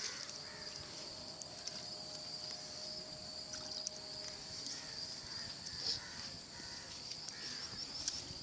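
Steady high-pitched drone of insects, with a few faint clicks.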